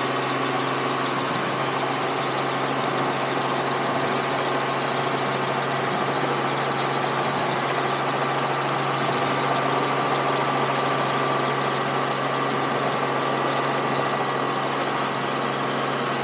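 Robinson R44 helicopter heard from inside the cabin, its six-cylinder Lycoming piston engine and rotors running steadily while it sits on the runway after an autorotation touchdown.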